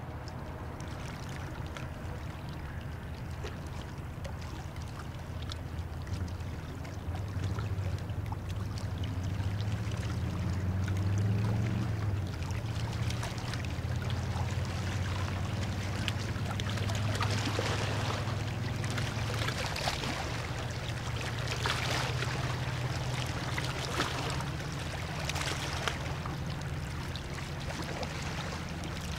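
Low steady drone of a passing river ship's engine, swelling about a quarter of the way in and easing off later, with water splashing and lapping against the riverbank in the second half.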